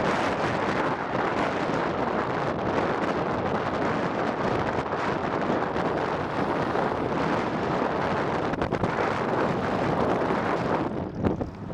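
Wind buffeting the camera microphone: a loud, steady rumbling roar that eases off for a moment near the end.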